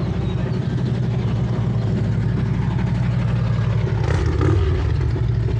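A motorcycle engine idling steadily in the parking lot, with a brief swell about four seconds in.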